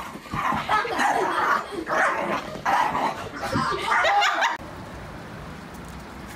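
A dog barking: a run of loud, sharp barks over about four seconds that cuts off abruptly.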